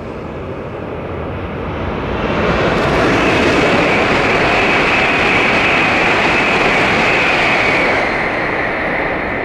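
Hokuriku Shinkansen E7/W7-series train passing on a viaduct: a rushing noise builds about two seconds in, stays loud for about five seconds with a high hiss on top, then fades away near the end.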